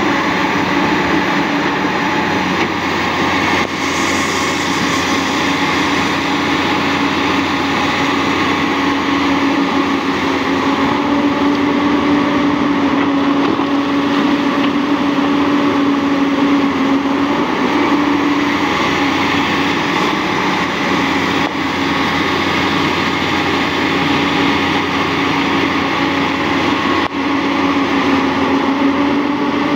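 Komatsu PC200 hydraulic excavator's diesel engine running steadily under working load, with a constant humming note, as it digs and swings bucketloads of broken rock into a dump truck.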